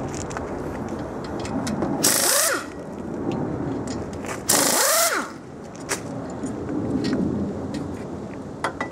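Air-powered wrench run in two short bursts, about two and four and a half seconds in, each a hiss of air with a whine that rises and falls as it spins the caliper bolts out.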